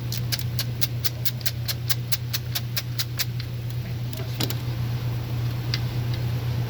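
Car engine idling with a steady low hum during a misfire diagnosis after an ignition coil replacement, with a fast, even run of sharp clicks, about five a second, over the first half that then stops.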